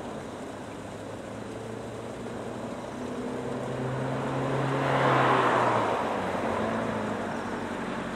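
A motor vehicle passing by, its engine and road noise swelling to a peak about five seconds in and then fading away.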